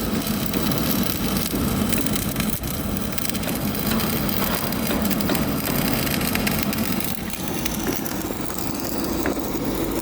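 Stick (shielded metal arc) welding arc crackling steadily, a dense frying crackle over a low hum.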